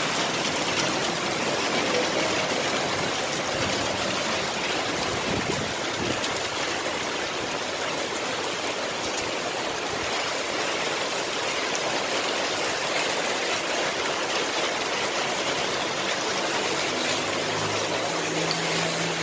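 Steady rushing of flowing water, even and unbroken, with a faint low hum joining near the end.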